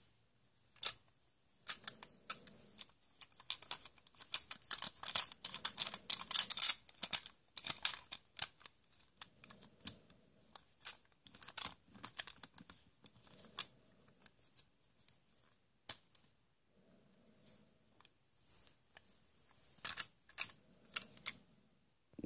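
Irregular clicking and rattling of hard plastic toy tools being handled, busiest from about four to seven seconds in and again near the end.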